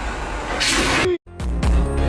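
Background electronic dance music: a rising noise sweep builds to a bright whoosh, drops out for an instant just after a second in, then a dance beat with a steady bass pulse comes in.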